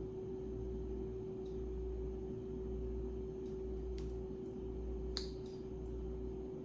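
A steady mid-pitched background hum with a low rumble beneath it, and a few faint light clicks of jewelry being handled, the clearest about five seconds in.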